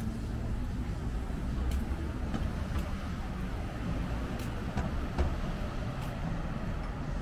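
City street ambience: a steady low rumble of traffic, with scattered small clicks and knocks.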